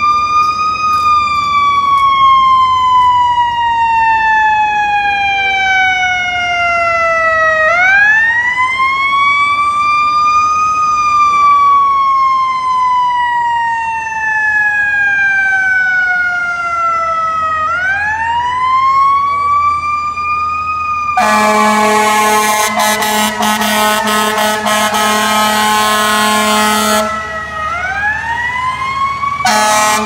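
Fire truck's EQ2B electronic siren, an imitation of the Federal Q2B mechanical siren. It winds up quickly, then slowly falls in pitch, repeating about every ten seconds. About two-thirds of the way in, a loud air horn blasts over the siren for about six seconds, and it sounds again at the very end.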